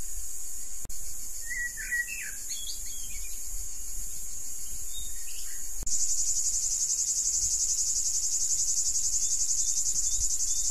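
Cicadas droning steadily in hot midday scrub, the drone louder and rapidly pulsing from about halfway through. A few short bird chirps come near the start.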